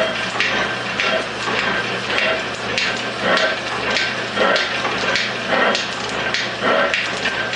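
Metal shaper taking a facing cut across the top of a cast aluminium dividing-head body: the ram runs back and forth about once a second, each cutting stroke scraping and clattering, over the steady hum of the drive motor.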